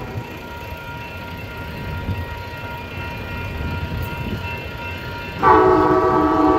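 Amtrak Pacific Surfliner diesel locomotive approaching with a low rumble. About five and a half seconds in, its multi-note air horn starts a loud, long blast sounded as a chord.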